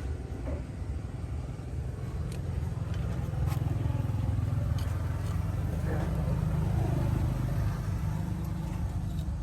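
A motor vehicle engine running with a low, steady rumble. It grows louder over the first few seconds, then holds.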